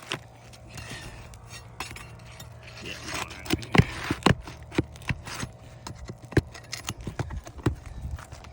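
Asphalt roof shingles scraped and worked loose by hand and tool, with a string of sharp knocks, the loudest two about 4 s in and one about 6 s in.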